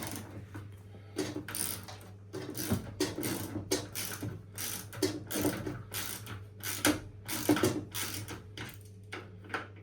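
Ratchet wrench clicking in short bursts of strokes as bolts on a washing machine are loosened. A steady low hum sits underneath.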